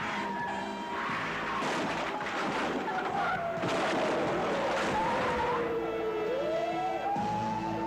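Car tyres skidding and screeching as a 1978 Pontiac Catalina swerves hard, under a police siren wailing, its pitch falling slowly and then rising again about six seconds in.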